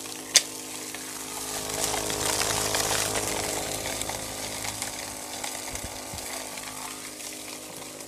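The motor-driven centrifugal fan of a homemade cardboard cone-type vacuum prototype running, with a steady whine and a rush of air full of fine crackling and rattling. There is one sharp click just after the start, and the sound swells louder for a second or two partway through.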